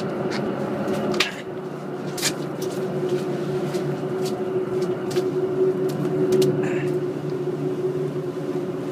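Ship's machinery running with a steady low drone made of several held tones, with scattered sharp clicks and knocks on top.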